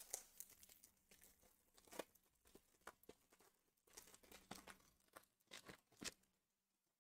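Faint crinkling and tearing of a Topps trading-card pack wrapper being opened by hand, a scattering of soft crackles.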